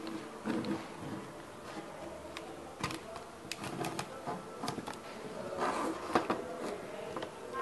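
Irregular light clicks and taps of thin laser-cut wooden parts of a small robot chassis being handled and pressed together, busiest from about three to six seconds in.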